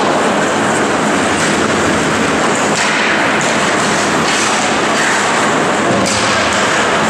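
Ice hockey game at the rink: a steady loud wash of noise from skates on the ice and the arena, with a few sharp clacks of sticks and puck scattered through it.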